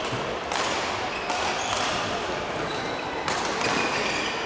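Badminton rally: rackets smacking the shuttlecock every second or two, with short squeaks of players' shoes on the court floor.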